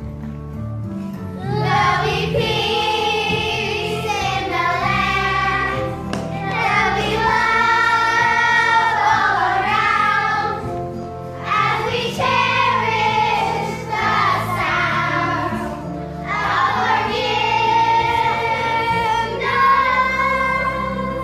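A group of children singing a song together over instrumental accompaniment, in sung phrases that break off every couple of seconds.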